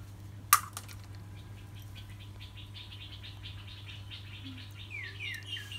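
A single sharp knock about half a second in, then a small animal calling: a fast run of chirps, about seven a second, followed by a few quick falling notes near the end. A low steady hum runs underneath.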